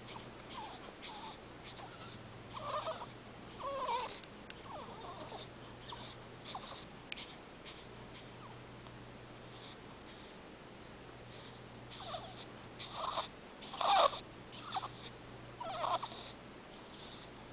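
Baby making short squeaky vocal noises in scattered bursts, quiet in the middle and busiest near the end.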